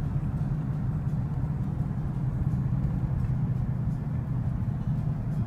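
Steady low rumble of engine and road noise inside a moving car's cabin while driving along a town street.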